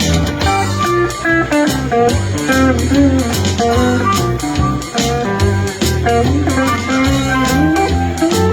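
Live blues band playing an instrumental break: electric guitar picking lead lines with bent notes over bass guitar and drums.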